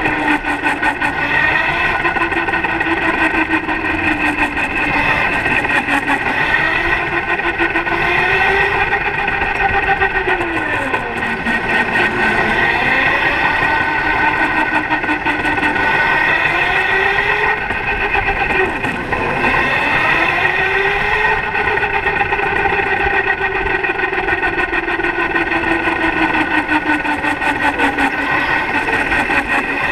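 Electric go-kart motor whining from on board, its pitch rising and falling every few seconds as the kart speeds up and slows through the corners, over a steady higher whine.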